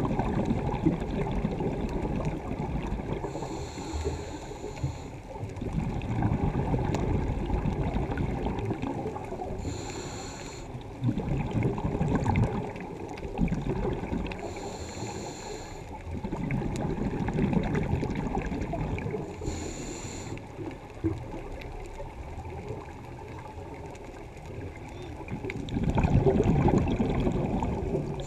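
Scuba diver breathing from a regulator, heard through an underwater camera housing. Exhaled bubbles rumble and gurgle in surges every five seconds or so, each preceded by a brief hiss.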